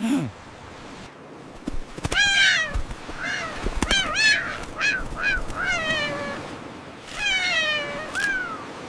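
A cat meowing over and over: about eight short meows that rise and fall in pitch, starting about two seconds in, with a few sharp clicks among them.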